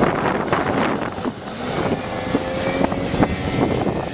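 Tohatsu outboard motor on an aluminium jon boat running under throttle as the boat speeds away, mixed with wind buffeting the microphone.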